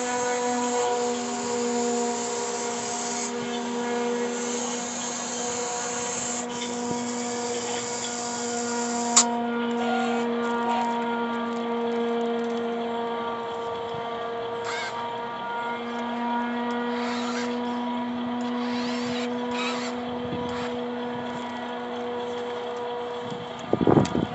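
RC model excavator's motor whining steadily as it digs, with a single sharp click about nine seconds in and a few knocks near the end.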